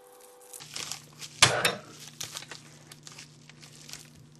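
A package being unboxed by hand: packaging rustling and crinkling, with one sharp, loud clack about a second and a half in, then lighter rustles and ticks.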